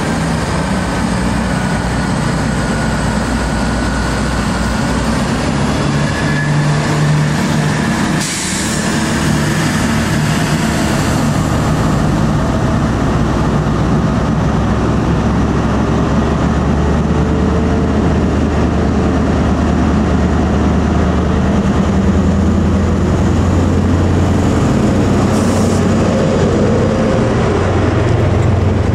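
Diesel engine of a Class 43 InterCity 125 power car running steadily at the platform. Its low hum grows stronger in the second half as the train moves off and its coaches roll past.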